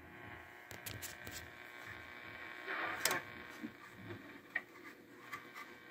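Old Philco AM car radio being tuned across the dial on the bench: faint hiss and hum from its speaker with several steady whistling tones, and light clicks from the knob and push buttons.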